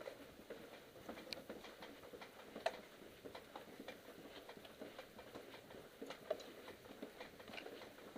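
Faint, irregular light clicks and taps at no steady rhythm, with one sharper click a little under three seconds in.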